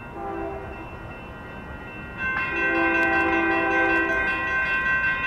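Approaching Union Pacific freight locomotive's air horn: a short blast near the start, then a long, louder blast from about two seconds in. Over it the grade crossing's electronic warning bells ring as the crossing activates.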